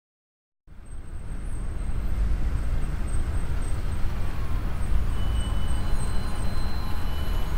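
Semi truck driving, a steady low engine and road rumble heard from the cab that fades in about a second in.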